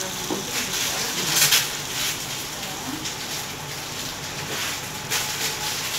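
Steady hiss from coconut milk heating over fried tuna in a pot, with two brief clinks, about a second and a half in and again about five seconds in.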